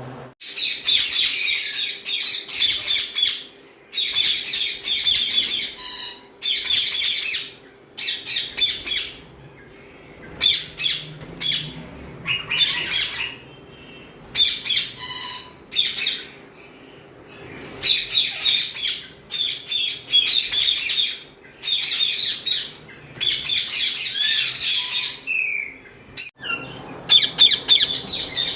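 Ringneck parakeets squawking in repeated harsh, high-pitched bouts of a second or two each, with short pauses between.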